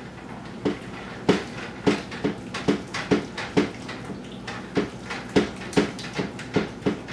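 A utensil stirring in a Teflon-coated pan, knocking and scraping against it in quick regular strokes about two a second.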